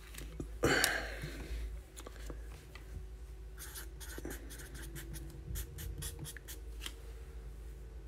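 Small scattered clicks and handling noises, thickest in the second half, with a short rustle about a second in and a faint steady hum underneath.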